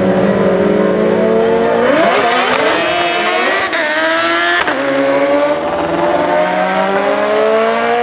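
Drag-racing motorcycles held at high revs on the start line, then launching about two seconds in and accelerating hard down the strip. The engine pitch climbs, drops briefly at each upshift about a second apart, and climbs again.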